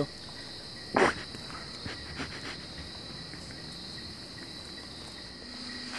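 Steady, high-pitched insect chorus, with one brief louder sound about a second in.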